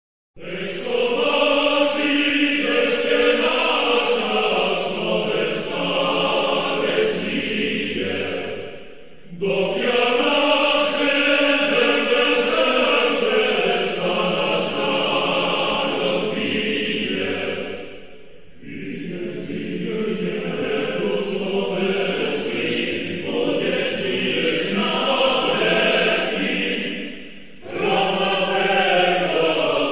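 Choral music: a choir singing slow, sustained phrases. It starts about half a second in, with brief dips between phrases roughly every nine seconds.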